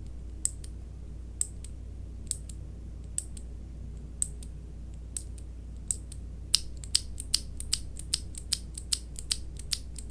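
A Cherry MX mechanical key switch being pressed repeatedly, sharp separate clicks about once a second, then quicker and somewhat louder presses about two or three a second from about six and a half seconds in, over a steady low hum.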